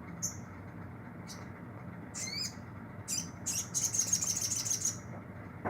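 Brown-throated sunbird (sogok ontong) calling: a few short, sharp high chirps and swooping notes, then a fast, rattling run of high notes lasting about two seconds, over a steady low hum.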